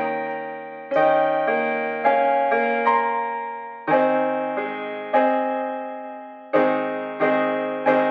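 Slow, gentle piano music: chords and single notes are struck at an unhurried pace, and each is left to ring and fade before the next.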